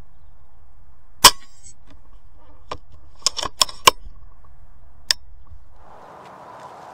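A single sharp shot from a .22 FX Crown pre-charged air rifle about a second in, with a brief ringing tail. A run of smaller sharp clicks and knocks follows over the next few seconds.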